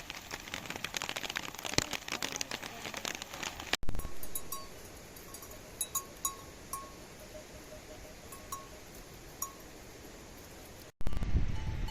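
Rain pattering densely for a few seconds, then a steady hiss of rain with scattered faint bell-like tinkles. Near the end a louder low rumble cuts in.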